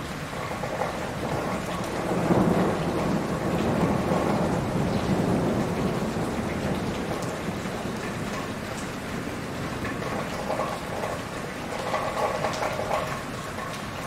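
Heavy rain pouring steadily, with a low rumble of thunder swelling about two seconds in and dying away over the next few seconds.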